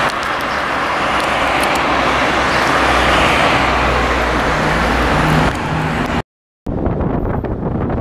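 Road traffic noise: tyre and engine noise of passing vehicles, swelling to a peak about three seconds in, with a low engine hum near the end. It cuts off about six seconds in, and after a brief silence wind buffets the microphone of a camera in a moving car.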